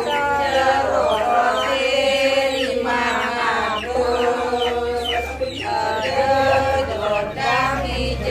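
Chanting in long, held notes with short breaks between phrases, each note dipping slightly in pitch as it begins.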